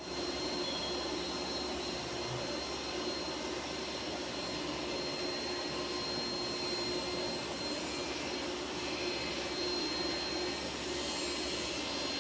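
Machinery running steadily: a continuous mechanical noise with a constant high whine and a low hum, like electric motors turning.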